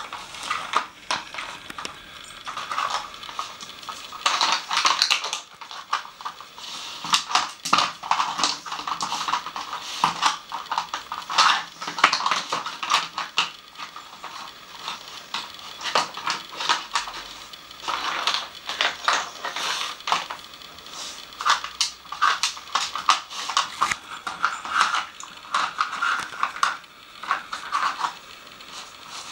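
A dog working a Nina Ottosson plastic treat puzzle: hard plastic lids and the plastic board knocking and clattering in quick, irregular clicks as it noses and paws at the pieces to get at the treats.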